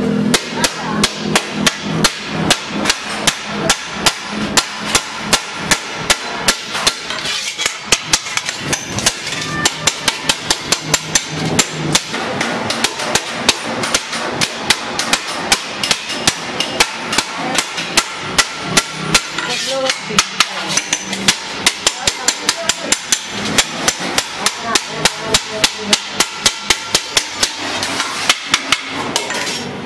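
Hand hammer striking the seam of a rolled stainless steel sheet laid over a steel bar, closing the body of a milk can: quick, even metal-on-metal blows, about two to three a second.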